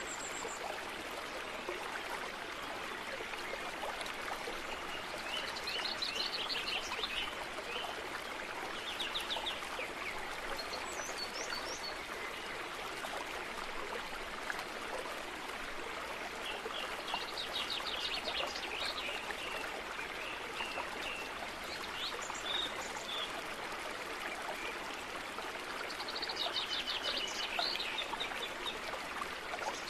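A steady rush like a flowing stream, with small birds chirping in quick trills every few seconds.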